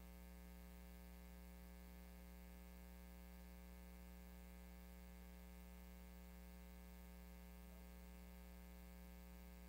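Near silence: a steady electrical hum with a stack of even overtones and faint hiss, all that the recording picks up while the microphone is switched off.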